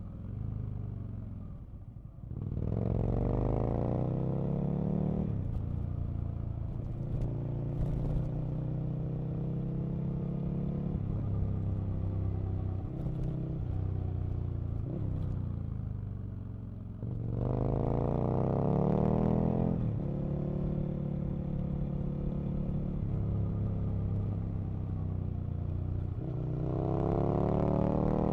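Aprilia RSV Mille RP's 60-degree V-twin engine heard from on board while riding. The revs drop off near the start, then climb sharply in a hard acceleration, settle into steadier running, dip, and climb hard twice more later on.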